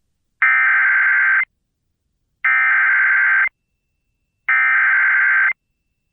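Emergency Alert System SAME header: three bursts of digital data tone, each about a second long and about a second apart. This is the coded header that opens a new alert, here a flash flood warning relayed over FM radio.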